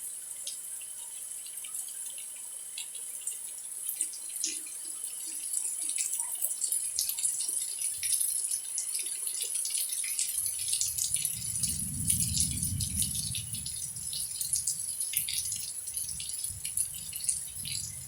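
Rain falling, its drops pattering and dripping in quick irregular ticks. About ten seconds in a low rumble joins it, swells and then eases off.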